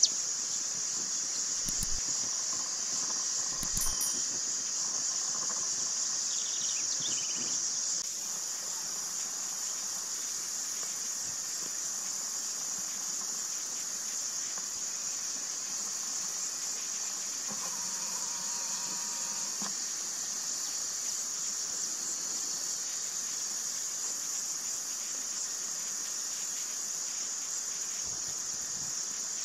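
Insects chirring in a steady, unbroken high-pitched chorus.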